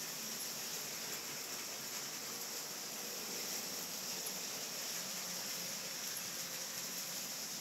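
Steady hiss over the faint running of LEGO trains' motors and wheels on plastic track.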